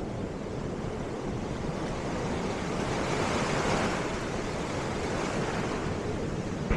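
Ocean surf washing ashore, a wave swelling up and breaking about halfway through, with wind rumbling on the microphone.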